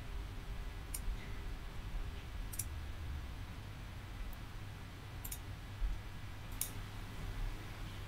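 Computer mouse buttons clicking: about five short, sharp, irregularly spaced clicks while spline points are selected and dragged, over a faint low hum.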